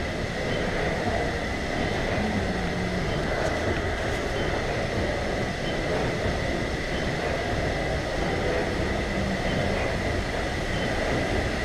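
Steady machinery din in the steam engine room of a WWII Liberty ship, its steam machinery running, with a constant high hum over the noise.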